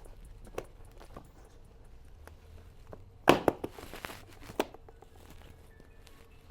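Cardboard shipping box being opened: a sharp crack about three seconds in, then a brief tearing sound and a few light knocks, among quieter handling rustles.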